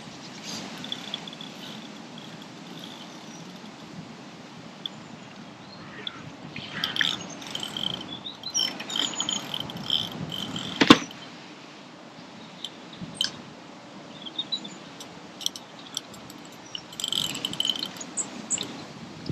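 High-pitched chirping calls repeated in short runs over a low outdoor hiss, with one sharp click about eleven seconds in.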